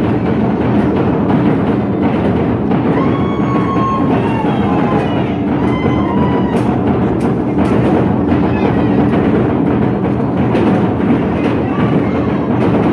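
A large drum beaten in a steady dance rhythm for a Tongan ma'ulu'ulu, over a dense wash of voices, with a few high wavering calls between about three and six seconds in.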